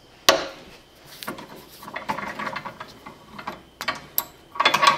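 Small metal clicks, scrapes and clinks as a brake-line flaring tool's yoke is unscrewed and lifted off the steel flaring bar held in a vise, with a louder clatter of metal near the end.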